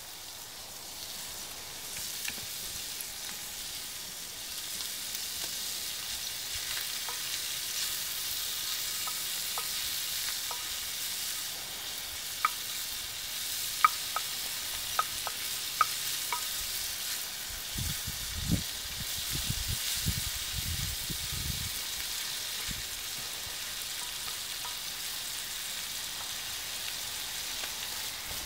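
Chopped bacon sizzling in a frying pan as it is stirred with a wooden spatula. The hiss builds over the first few seconds, and a run of sharp clicks comes about halfway through, with a few dull low thuds soon after.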